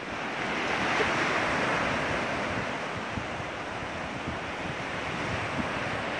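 Surf washing onto a sandy beach, a steady rush, with wind buffeting the microphone in irregular low thumps.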